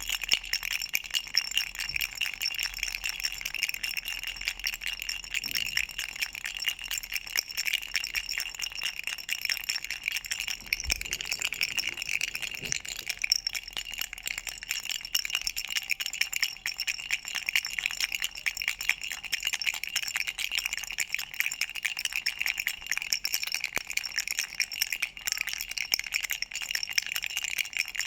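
Duck rattle, a baby's toy, shaken without a break: a dense, steady jingling of many quick clicks with bright, high ringing tones.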